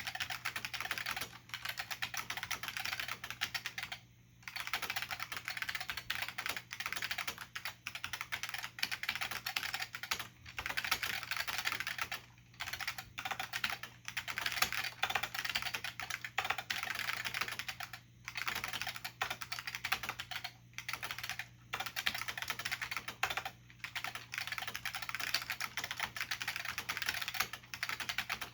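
Fast typing on an IBM P70 keyboard with Alps plate-spring switches and thin dye-sublimated keycaps: a dense clatter of keystrokes, broken by short pauses every few seconds.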